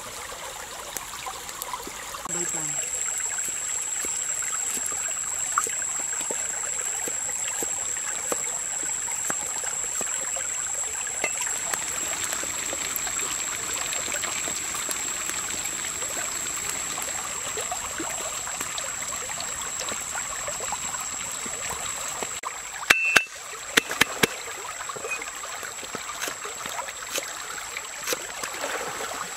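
Small frecklefin eels deep-frying in a pan of hot oil: a steady sizzle that starts a couple of seconds in. Near the end, a cleaver knocks sharply on a wooden chopping board several times, followed by lighter chopping clicks.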